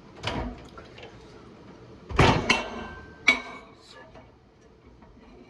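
Kitchen dishware being handled: four knocks and clinks of a dish or container being set down and moved. The loudest comes about two seconds in, and a couple leave a brief ringing tone.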